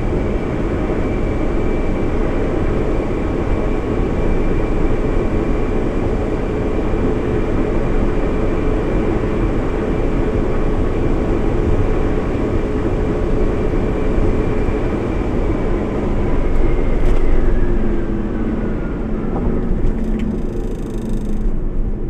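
2018 Mitsubishi Xpander's 1.5-litre four-cylinder engine, on a Stage 1 ECU tune, pulling steadily at full throttle near 6,000 rpm in top gear, with heavy road and wind noise at about 160 km/h. In the last few seconds the throttle is lifted and the engine note slides down as the revs fall.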